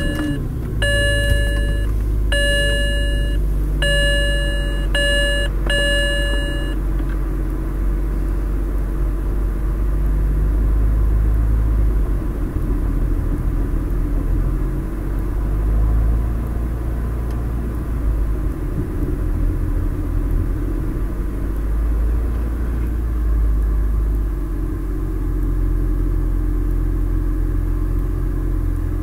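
BMW 328i's 3.0-litre straight-six idling after a rough start with no throttle input, which the owner ties to Valero premium fuel and takes to be benign. A dashboard warning chime sounds about six times over the first seven seconds.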